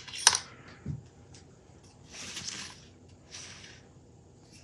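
Small handling noises at a workbench: a sharp click near the start and a soft knock about a second in, then two brief rustling scrapes.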